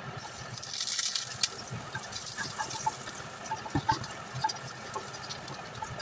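Slices dropped into hot oil in a stainless steel wok sizzle, starting about half a second in, then crackle on as a spatula stirs them, with a few scrapes and knocks of the spatula against the pan.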